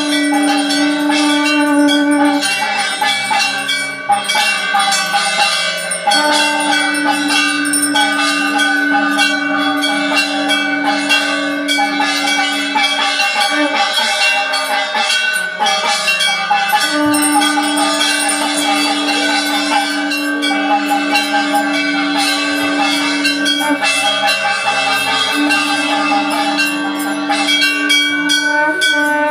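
Temple bells ringing continuously during a puja. A low, steady tone is held for several seconds at a time, four times, with short breaks between.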